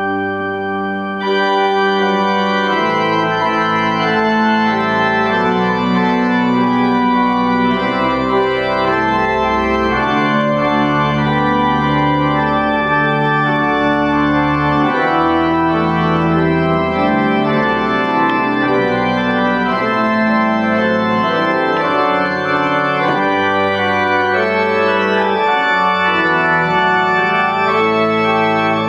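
Church pipe organ playing a piece in full sustained chords over a deep pedal bass. It enters abruptly and grows fuller about a second in, then holds steady and loud.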